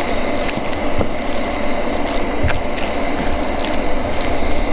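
Stir-fry of noodles, chicken and vegetables sizzling in a frying pan as it is stirred and tossed with a spatula: a steady hiss with scattered crackles and scrapes.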